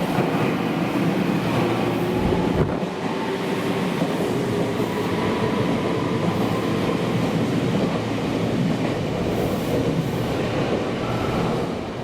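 Meitetsu electric train running at a station platform: a steady rumble of wheels and running gear with a faint motor whine, and a single knock about two and a half seconds in.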